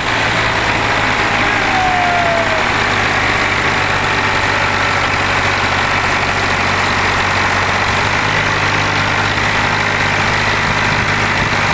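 Eicher 380 tractor's diesel engine running loud and steady under heavy load, straining to pull a loaded trolley with its rear wheels dug into sand and its front end reared up.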